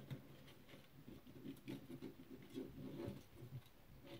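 Faint scratching and a few small clicks of plastic kit parts being handled and pushed into a plastic grid base plate.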